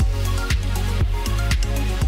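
Electronic dance music with a heavy bass line and a steady beat, about two beats a second.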